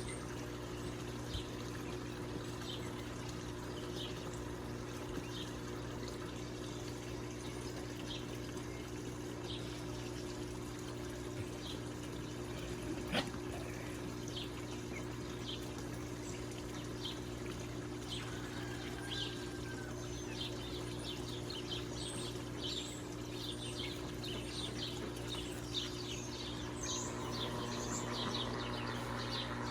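Water pouring and trickling steadily into a pond, over a constant low hum. Many short, high bird chirps come through the water sound, more often in the second half, and there is one sharp click about halfway.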